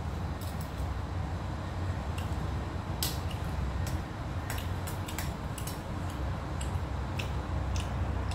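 A metal spoon clinking and scraping against stainless steel bowls while eating: a dozen or so sharp, irregular clicks, the loudest about three seconds in, over a steady low hum.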